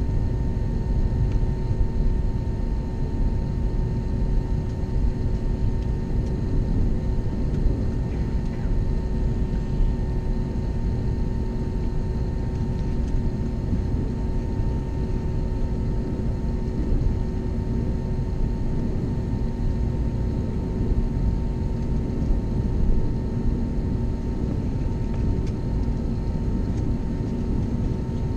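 Airliner cabin noise inside an Airbus A321neo taxiing at night. Its Pratt & Whitney PW1100G geared turbofans run at idle, giving a steady low rumble with a few held tones over it.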